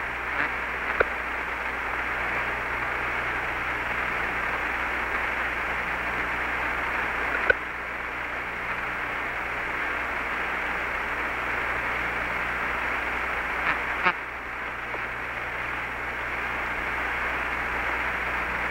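Steady hiss of an open radio voice channel, the Apollo 11 air-to-ground link between transmissions, with a few sharp clicks: about a second in, midway, and about fourteen seconds in.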